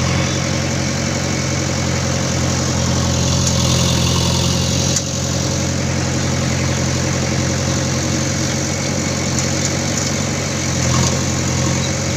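Diesel engine of a JCB machine running steadily at a low, even speed, with a few light clicks over it.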